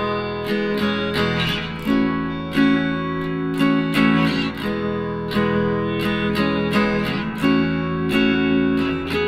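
Background music of acoustic guitar, a steady run of picked notes.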